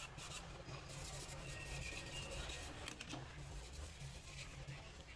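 Scraping and rubbing on a phone's bare mid-frame: a stick works along the frame's edges to lift old adhesive residue, then a cloth wipes across it, with a few small clicks of the frame being handled.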